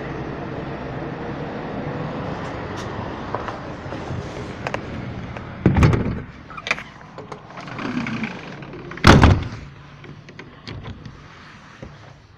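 Steady background rumble, then two loud heavy thumps about three seconds apart, the second the louder, with lighter knocks and clicks between and after them.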